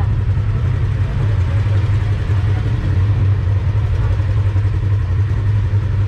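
Polaris RZR side-by-side off-road vehicle's engine running steadily, a constant low drone.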